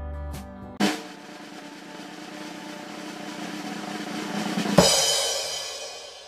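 Drum-roll sound effect: a snare roll grows louder for about four seconds and ends in a cymbal crash that rings out, the build-up to a reveal. Guitar background music stops with a hit about a second in, just as the roll starts.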